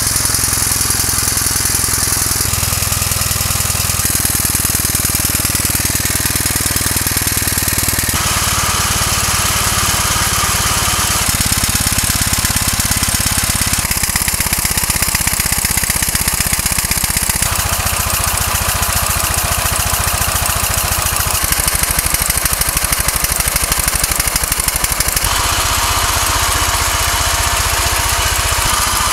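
Homemade steam engine running unloaded, its generators switched off, with a fast, steady beat of exhaust and mechanical clatter; it is being left to run in its newly rebuilt parts.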